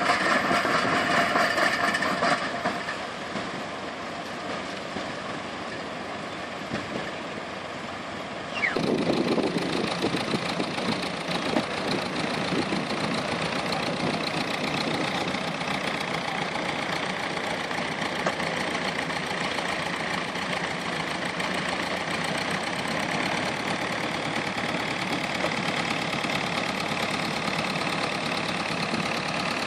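Tractor engines running steadily as they haul a beach-seine net, with an abrupt jump in the sound about nine seconds in.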